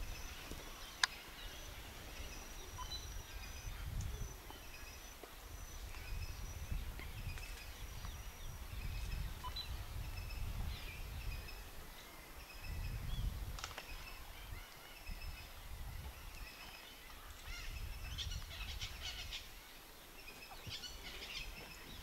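Outdoor wetland ambience: a low, fluctuating rumble with many short, faint bird chirps and calls throughout, busiest near the end.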